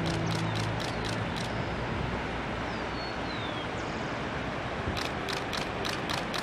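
Steady outdoor noise in a gorge. A low hum fades out about a second in, bursts of short high ticks come at the start and again near the end, and a brief falling whistle sounds around the middle.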